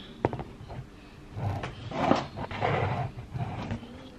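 Handling noise from a handheld camera being moved and set up: a sharp knock about a quarter second in, then a few seconds of rubbing and bumping.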